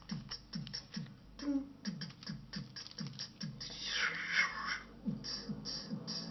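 Vocal imitation of club dance music, beatboxed by mouth: an even beat of low kick sounds about three a second with clicking hi-hat sounds over it, and a brief hissing scratch-like burst about four seconds in.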